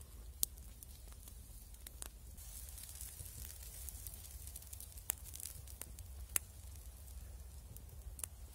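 Small wood campfire burning down to embers, crackling with a handful of sharp pops, under a soft sizzling hiss from the meat roasting on a stick just above the coals.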